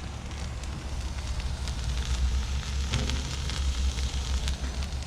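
An omelette sizzling and crackling on a Blackstone flat-top griddle, with scattered pops over a steady low rumble.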